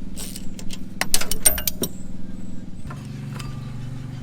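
A neighbour's lawn mower engine drones steadily in the background and drops in pitch about three seconds in. Over it come a ratchet click and then a quick run of sharp metallic clinks from hand tools on the engine, about a second in.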